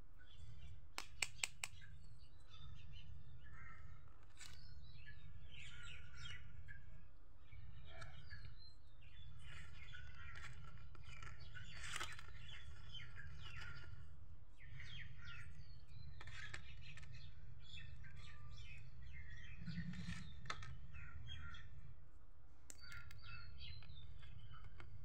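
Birds chirping over a steady low background hum. A few sharp clicks about a second in, from plastic toy kitchen utensils being handled and set down.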